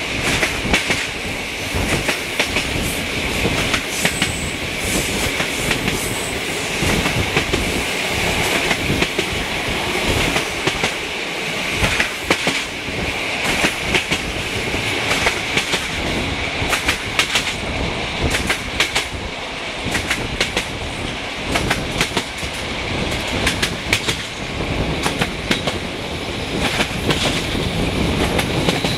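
Passenger train in motion, heard from an open coach window: the coach's wheels rumble and clatter over the track with many irregular clicks, over a steady rushing noise.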